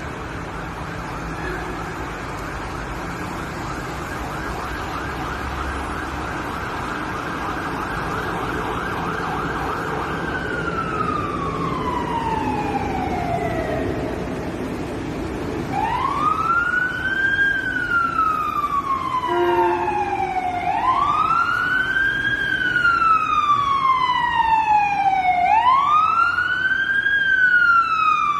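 Siren sounding: first a steady high tone with a fast flutter, which after about ten seconds slowly falls in pitch. It then wails in repeated cycles, each a quick rise and a slow fall, about every five seconds, growing louder toward the end.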